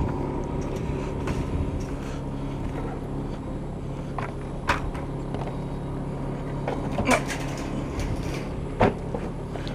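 Tracked excavator's diesel engine running steadily at idle, with a few sharp clanks scattered through it, the loudest about two thirds of the way in.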